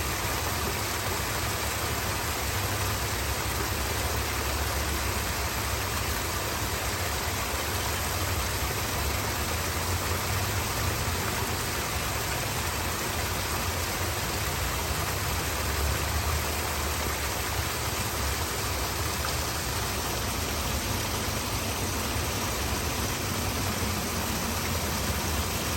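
Waterfall: a steady, unbroken rush of falling water with a deep low rumble underneath.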